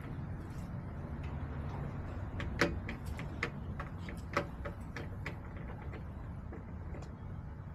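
Chickens pecking and tapping at hard surfaces: a scatter of irregular sharp clicks, the two loudest about two and a half and four and a half seconds in, over a steady low rumble.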